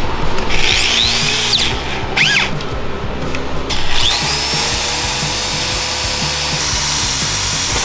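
Corded electric drill boring into a metal exhaust header: a short burst about half a second in, a brief blip, then a longer run from about four seconds in, the motor whine rising each time it spins up.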